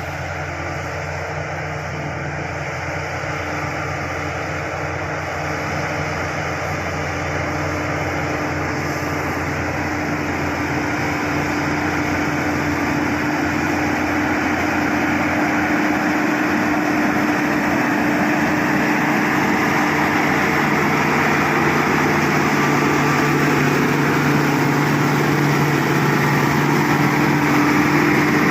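SD16 bulldozer's diesel engine running steadily, growing gradually louder.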